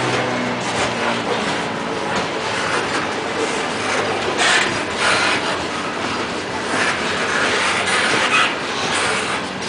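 Open-top steel coal cars of a Norfolk Southern unit coal train rolling past close by: the steady rumble and rattle of steel wheels on the rails, with a few louder clacks in the second half as wheels cross rail joints.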